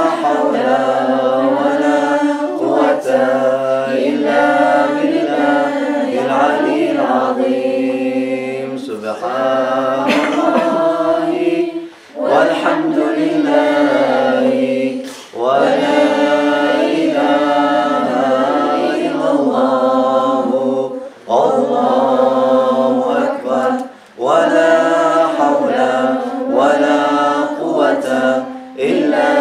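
Men and women chanting dhikr together in Arabic, unaccompanied, as one melodic line sung in long phrases with brief breaks between them.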